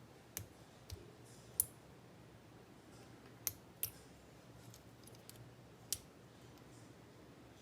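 Scattered sharp clicks of tools and small parts working on a Kwikset Gen 2 lock cylinder as it is taken apart, about six in all, irregularly spaced.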